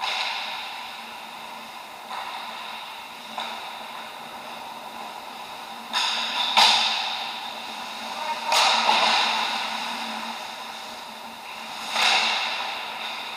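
Ice hockey play in a rink: about seven sharp cracks and scraping hisses from sticks, puck and skates, each ringing away over a second or so, over a steady low hum.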